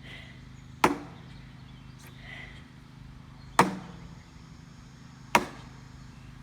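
Three heavy blows on an old water heater's metal casing, a couple of seconds apart, each a sharp clang with a short ring, over a steady low hum.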